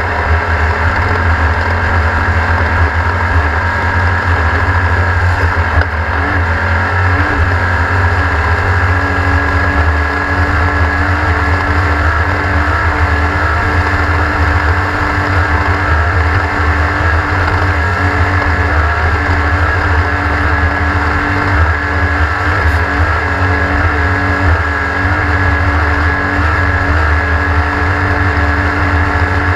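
Class 1600 off-road race car's air-cooled 1600cc VW flat-four engine running steadily at racing pace, with a loud low rumble.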